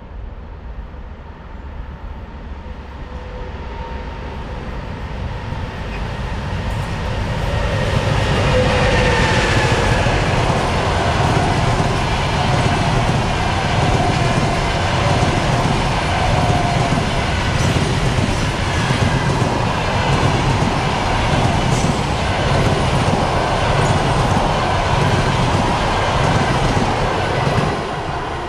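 EP20 electric locomotive and its train of passenger coaches approaching and passing close by, growing louder over the first several seconds. Then a steady rumble with a rhythmic clickety-clack of wheels over the rail joints, with some whining tones drifting in pitch in the first half. It falls away a little near the end as the last coach passes.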